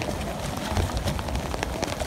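Storm wind buffeting the microphone as an uneven low rumble, with scattered sharp taps and clicks throughout.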